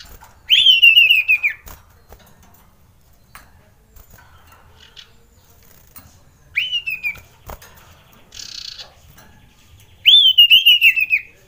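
Common iora (cipoh) singing three loud phrases, each a sharp upward whistle that falls away in a quick run of notes, about a second long, with a few sharp clicks and a short rustle between them.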